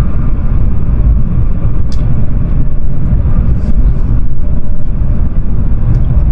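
Loud, steady low rumble of the Whoosh high-speed electric train heard from inside the passenger cabin as it runs at high speed through a tunnel.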